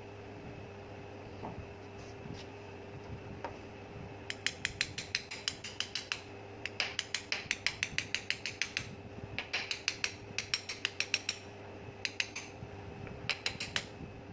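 Rapid runs of metallic clicking, about ten clicks a second in bursts of one to two seconds, as a part is turned by hand on the steel cylinder of a pneumatic chipping hammer during reassembly. A faint steady hum lies underneath.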